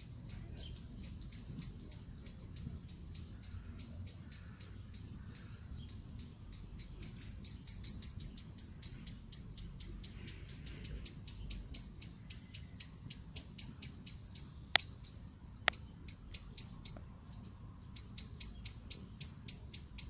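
A bird repeating one short, high chirp about four times a second. The chirping pauses for a few seconds in the middle, and two sharp clicks come during the pause.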